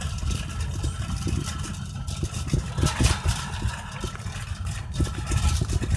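Loaded shopping cart rolling across parking-lot asphalt: a continuous uneven rumble from the wheels, with many small clicks and rattles as it jolts over bumps.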